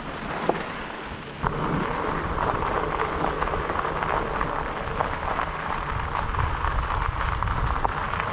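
Fat bike's Surly Nate tyres rolling over a gravel trail surface: a steady crunching hiss scattered with small stone ticks, getting louder about a second and a half in, with a low rumble of wind on the microphone.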